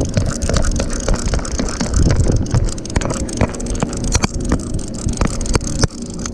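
A boat engine running at idle, a steady low rumble, with scattered sharp clicks and knocks on deck.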